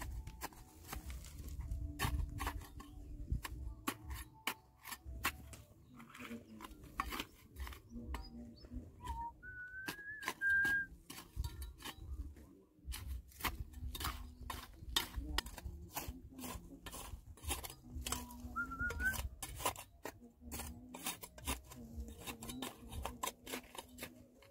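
Irregular metallic clinks, knocks and scrapes of a digging tool working hard stone and grit. A short rising whistled tone comes about ten seconds in and again shortly before the end.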